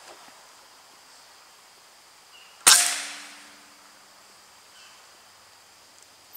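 A single rifle shot about two and a half seconds in: one sharp crack that echoes briefly and dies away over about a second.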